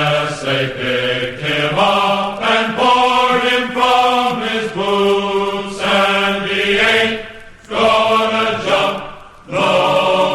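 Voices singing long, wordless, chant-like held notes, the pitch changing every second or so, with two short breaks near the end.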